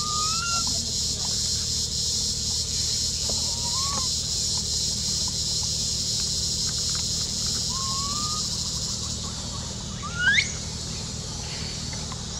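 Short rising animal calls over a steady high-pitched hiss and a low hum: three brief upward chirps spaced about four seconds apart, then a louder squeal that sweeps sharply upward about ten seconds in.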